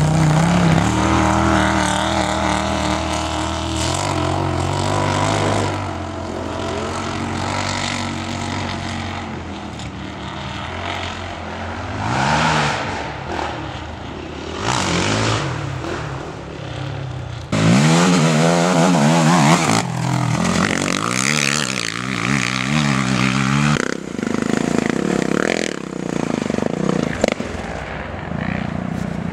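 Quad (ATV) engines revving hard and easing off as the quads race over a dirt track, the pitch rising and falling with the throttle. The sound steps up suddenly about two thirds of the way in.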